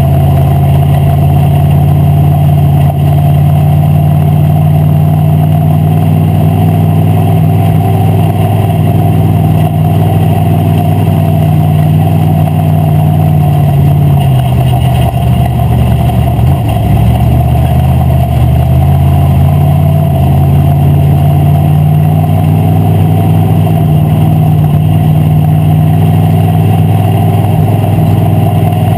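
WISSOTA Street Stock race car's V8 engine, heard loud from inside the cockpit, running hard and steady; its pitch drops about halfway through as the throttle eases, then climbs back up.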